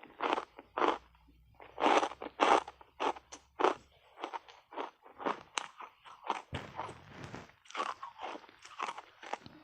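Chunks of ice coated in matcha powder being bitten and chewed: a run of sharp crunches, loudest about two seconds in, then quicker, lighter crunching as the pieces are chewed.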